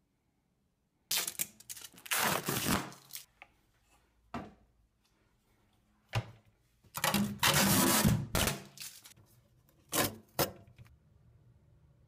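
Handling noise in several bursts: clicks, knocks and rustling scrapes, loudest about two seconds in and again from about seven to eight and a half seconds in.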